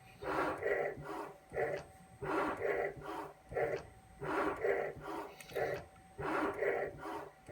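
CNC mill working as a shaper, its axes driving a fixed cutter back and forth in a steady rhythm of about one cycle every two seconds, a longer stroke then a short one. Each pass takes a very shallow cut through the Teflon coating over a flat flex cable's copper traces.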